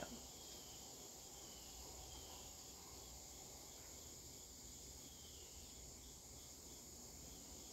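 Near silence: room tone with a faint steady high-pitched hiss.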